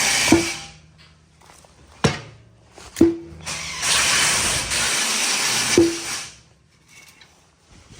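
Aerosol grease being sprayed in two long hissing bursts, the second lasting about three seconds, with four sharp metallic clinks that ring briefly.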